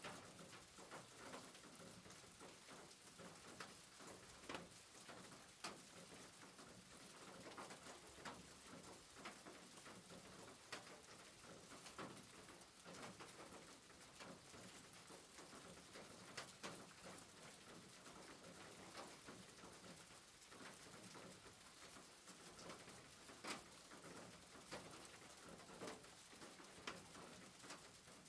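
Near silence, with faint, scattered clicks and crackles.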